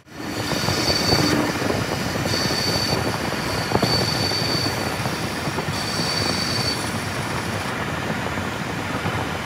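Metal lathe turning an aluminium truck-engine piston, the cutting tool shearing metal off it: a steady machining noise with a high whine that comes and goes several times and a single sharp tick about four seconds in.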